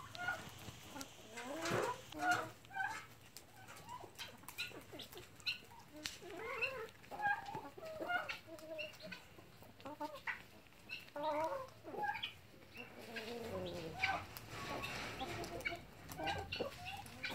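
A flock of chickens, hens and roosters, clucking while feeding, with many short calls overlapping at an uneven rhythm.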